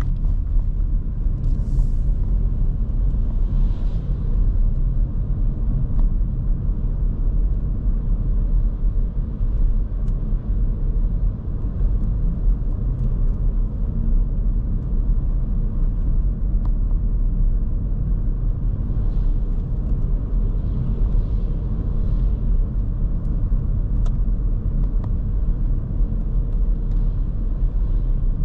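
Steady low rumble of road and engine noise inside the cabin of a 2023 Škoda Kamiq 1.0 TSI, a three-cylinder turbo petrol, driving at an even pace. A few faint, brief hisses come and go above the rumble.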